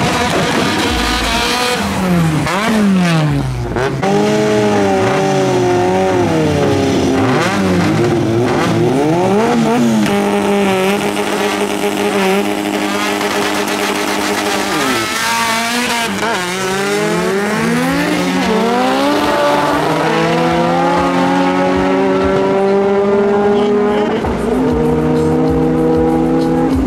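Two drag cars, one a Mitsubishi Lancer Evolution with a turbocharged four-cylinder, revving up and down on the start line, then holding steady high revs. About fifteen seconds in they launch, and the engines climb quickly in pitch through the gears before one long rising pull down the strip.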